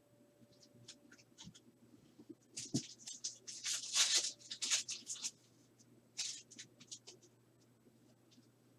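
Trading cards and a pack wrapper being handled, a run of short scratchy rustles and slides, loudest about four seconds in, with a smaller flurry a couple of seconds later.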